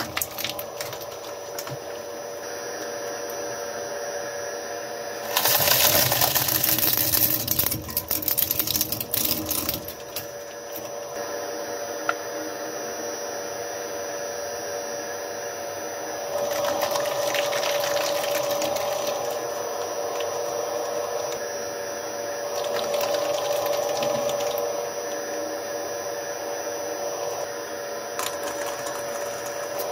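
Twin-shaft shredder running with a steady motor hum, its interlocking cutters crackling and crunching through plastic and silicone toys. The loudest bout of shredding comes about five seconds in and lasts several seconds, with further bouts later on.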